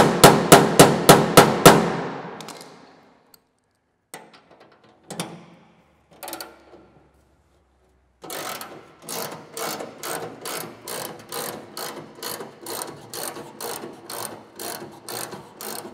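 A hand ratchet wrench clicking as it backs out the bolt holding the arc welder's side handle, at about three clicks a second from about eight seconds in. It opens with the last of a quick run of sharp metallic strikes that ring the sheet-steel cabinet, then a few scattered clicks.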